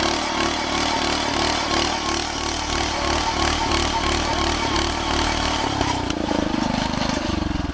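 A small engine running steadily, its pitch shifting about six seconds in and starting to wind down at the end.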